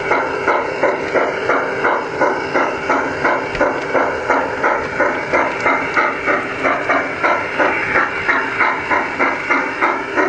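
G-scale model steam locomotive chuffing steadily, about three chuffs a second.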